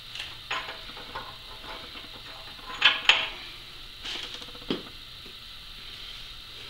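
Scattered light metallic clinks and knocks as hand tools and steel parts are handled, with two sharper clinks close together about three seconds in.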